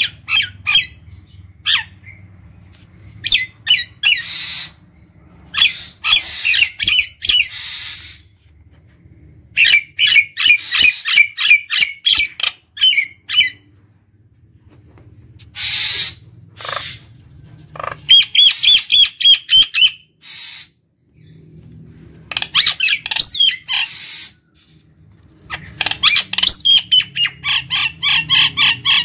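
Common myna singing in bursts: runs of rapid, repeated harsh and whistled notes, each run lasting a second or few, broken by short pauses.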